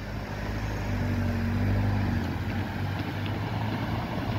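Cars driving past on the road: engine hum and tyre noise build over the first second, hold steady for a while, then ease off a little.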